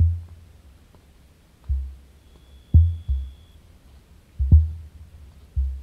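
Emus booming: six short, deep, low thumps at irregular intervals of about a second. Sharp clicks of feet on stony ground come with a couple of them.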